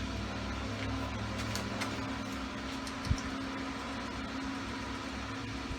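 Steady mechanical hum, like a running fan, with a single short knock about three seconds in.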